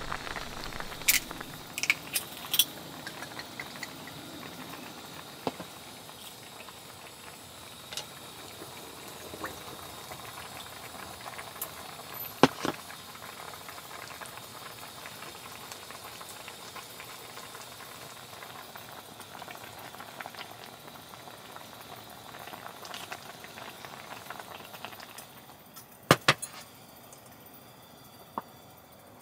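Pot of spicy fish roe soup boiling on a camping gas stove: a steady bubbling hiss. Sharp clinks break in a few times, with a cluster near the end, when the level drops lower.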